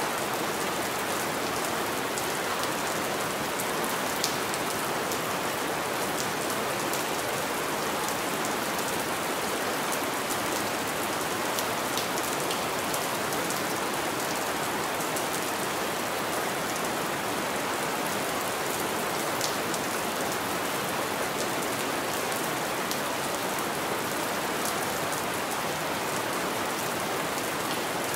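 Steady rain falling on a window pane: an even hiss with a sharper drop tick now and then.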